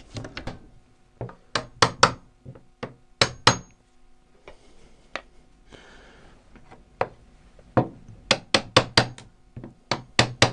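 Hammer tapping a chisel held against a timber parting bead, knocking the bead into its groove in a box sash window frame. Sharp wooden knocks come in uneven clusters with short pauses, including a quick run of about six taps near the end.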